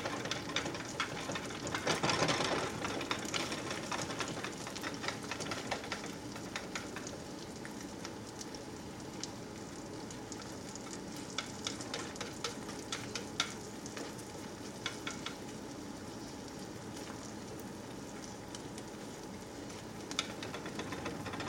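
Two eggs sizzling steadily as they fry in butter in a skillet. Chopsticks swirl the broken yolks through the whites, with light clicks and scrapes against the pan, busiest early on and again midway.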